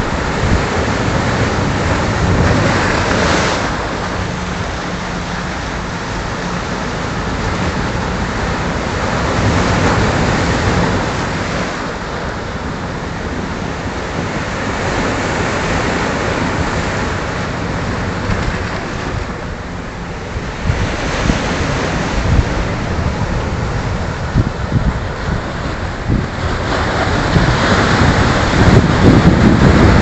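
Heavy surf breaking and washing over a rocky shore: a continuous rush of water that swells and ebbs with each wave, loudest near the end. Wind buffets the microphone in low thumps during the louder later part.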